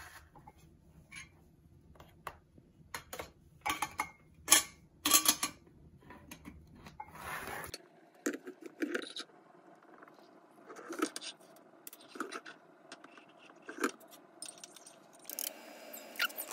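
A spoon clinking and scraping against a metal tea tin and a ceramic mug as loose tea is scooped, a quick run of sharp clinks. After that, hot water is poured from an electric kettle into the mug, a fainter steady sound with occasional knocks. Near the end comes a busier stretch of clinks as a spoon stirs in the mug.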